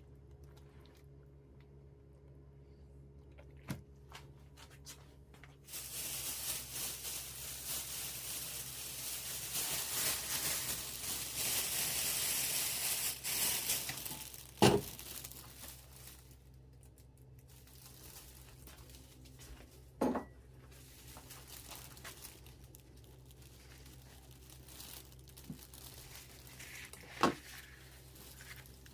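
Plastic oven bag crinkling loudly as it is handled and opened, for several seconds, then a few sharp single knocks.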